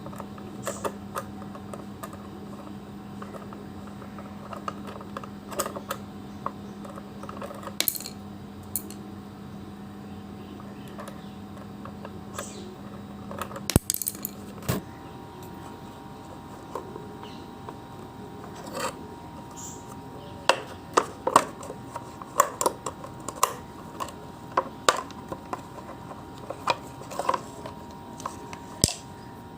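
Sharp metallic clicks and clinks of small metal parts, screws and a tool being handled while an electric iron is taken apart. The clicks come scattered, then faster in the last third, over a faint steady hum that stops about halfway through.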